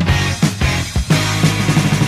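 Heavy metal band recording: electric guitar, bass guitar and drum kit playing together, with steady low bass notes and regular drum hits.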